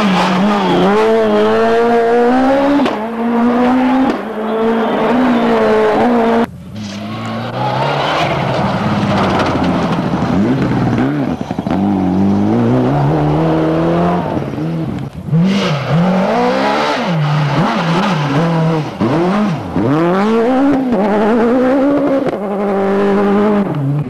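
Rally cars driven flat out one after another, engines revving high and dropping sharply through gear changes. The first is a Citroën C2 S1600, until a cut about six seconds in. After it the revs swing up and down faster and faster.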